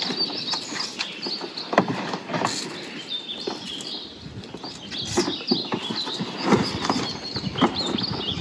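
Irregular knocks and clicks from a pack mule's load of leather panniers being handled and adjusted by hand, with small birds chirping high in the background.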